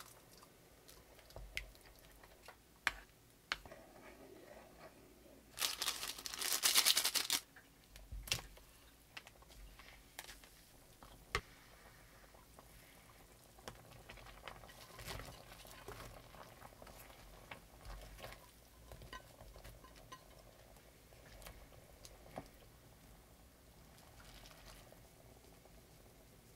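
Kitchen handling sounds while cooking: scattered light clicks and knocks, with one louder, dense noise of under two seconds about six seconds in.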